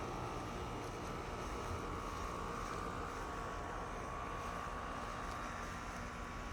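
A distant engine droning steadily, with a faint high whine that swells slightly midway.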